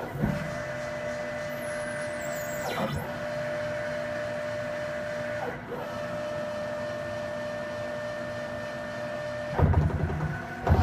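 Haas TL-1 CNC lathe running, its spindle turning brass stock under a gang tool, with a steady whine broken by short clicks a few seconds apart. About a second before the end comes a louder low rush as the gang-tool slide moves to a new position.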